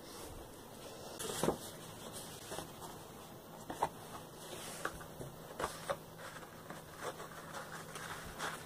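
Handling noise: light rustling and a scattering of irregular soft taps as a cotton T-shirt is smoothed out on a wooden table and cardboard is put inside it.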